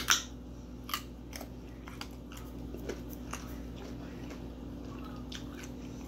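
Close-miked chewing and biting of pizza: a string of short crunches and mouth clicks, the loudest right at the start and another about a second in, over a faint steady hum.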